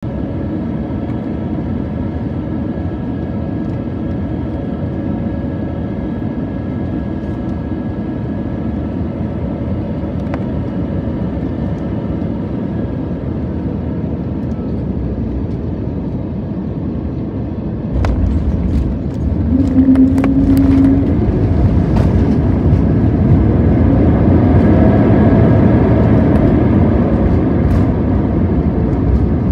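Airbus A321neo cabin noise on final approach: steady engine and airflow noise. Touchdown about 18 seconds in brings a sudden louder rumble and several thumps as the aircraft bounces onto the runway, and it stays loud as the jet rolls out on the runway.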